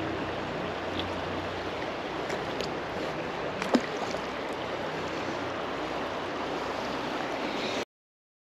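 Steady rush of flowing river water, with a single sharp click a little under four seconds in; the sound cuts off suddenly near the end.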